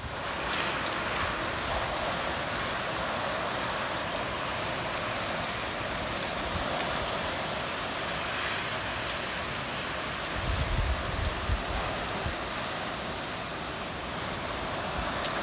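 Heavy rain pouring down steadily, with a brief low rumble about ten seconds in.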